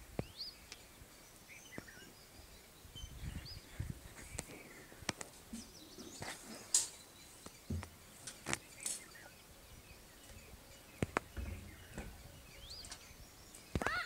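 Small stones and gravel clicking and scraping as a toddler's hands dig and sift through gravelly ground, in scattered taps with a few dull thuds. Faint short bird chirps come now and then.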